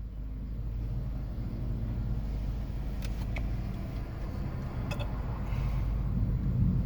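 Road noise inside a moving car: a steady low rumble of engine and tyres, growing louder near the end.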